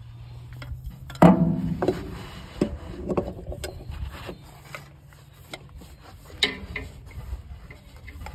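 A new filter being screwed onto a John Deere 8630 tractor engine by a gloved hand, tightened hand-tight: rubbing and scattered small clicks. A loud, short pitched sound comes about a second in, and a fainter one later.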